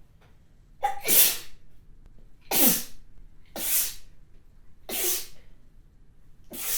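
A person sneezing hard, wet spraying sneezes in a quick series: four sharp sneezes about a second or so apart, with a fifth starting at the very end. A short voiced intake comes just before the first.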